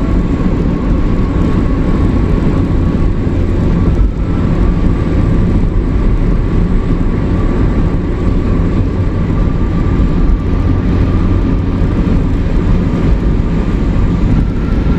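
Steady drone of a truck's engine and tyre noise heard from inside the cab while it cruises at highway speed, with a faint steady whine running through it.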